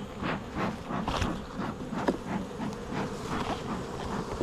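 Honeybees buzzing in a steady hum around an open hive, with scattered short clicks and scrapes throughout. The colony is stirred up by the inspection, which the beekeeper sums up as "not happy".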